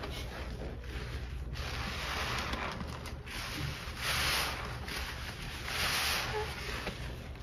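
A soaked sponge loaded with wet scouring-powder paste being kneaded and squeezed by gloved hands in a basin of suds: wet squelching and sloshing, with two louder squeezes about four and six seconds in, over a steady low hum.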